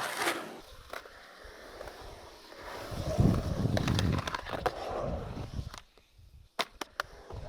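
Skateboard wheels rolling, loudest about three to five seconds in, followed by a few sharp clacks of the board near the end.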